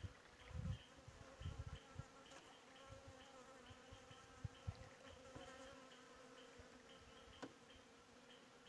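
Faint insects buzzing in a steady hum, with a soft high chirp repeating about twice a second. A few low thumps in the first two seconds.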